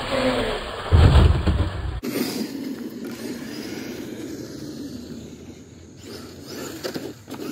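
Electric RC monster truck launching off a ramp, its motor whine dropping in pitch while airborne, then a loud thump as it lands on the asphalt about a second in. Afterwards a steadier low running noise as the truck drives across the lot.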